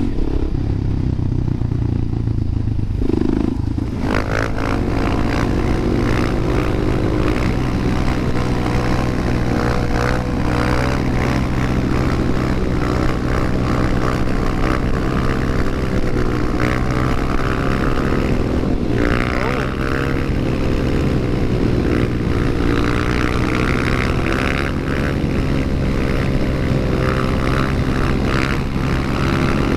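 Suzuki DR-Z400SM supermoto's single-cylinder engine running steadily at first, then under way from about four seconds in, its pitch wavering up and down with the throttle, with a rushing noise once moving and a brief rising rev a little past halfway.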